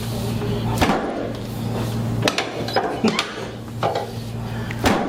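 Sharp clicks and knocks, about five of them, from hands-on chiropractic work on a patient, over a steady low hum that breaks off a few times.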